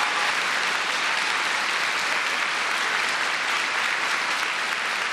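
A large crowd of students applauding, dense and steady clapping with no voices over it.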